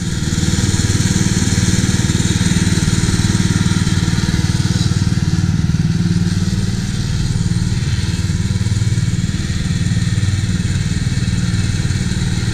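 Engine of an Allett Buckingham cylinder lawn mower running steadily while the machine mows.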